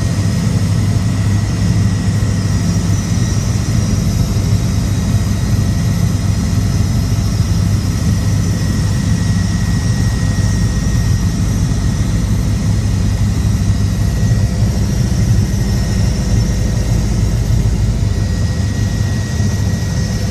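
Helicopter running steadily: a loud, even drone from the turbine and rotor, with a faint steady whine higher up.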